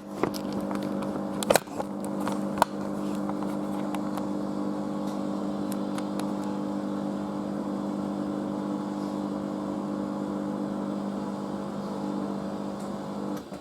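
Washing machine in its final spin at steady high speed, a motor whine holding one pitch, with a couple of sharp clicks in the first few seconds. The whine cuts off near the end as the spin finishes.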